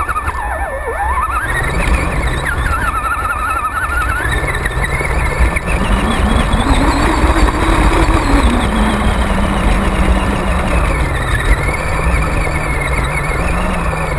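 Radio-controlled car's motor whining as it is driven, its pitch rising and falling with the throttle, heard from a camera mounted on the car.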